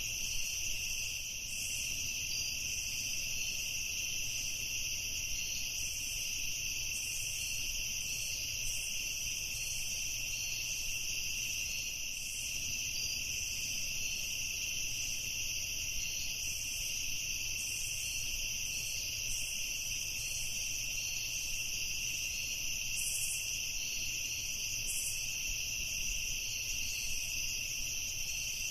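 Evening chorus of crickets trilling steadily and without a break, with a faint low rumble underneath.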